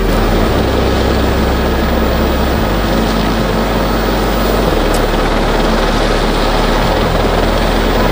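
Steady, loud aircraft noise with the rush of helicopter rotors, over low droning tones that shift in pitch every couple of seconds.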